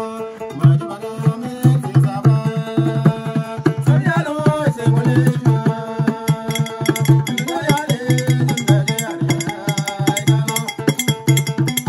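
Diola ekonting, a calabash lute with a goatskin soundboard, played with a djembe, whose beat comes in about half a second in, and a man singing long, bending notes over them. About halfway through, a metal hand percussion instrument adds fast, even strokes.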